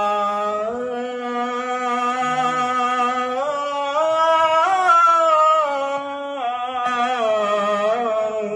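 A solo male voice singing a Punjabi naat, drawing out long held notes without words that step up and down in pitch.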